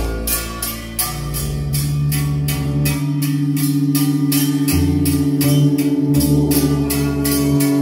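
Electronic music track: a steady percussive beat over plucked-string samples, with a deep bass line entering at the start and sustained low notes.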